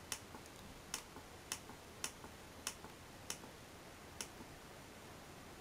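Computer mouse button clicked seven times at an uneven pace of roughly one click every half second to a second, each sharp click followed by a softer release click. A faint steady background noise lies under the clicks.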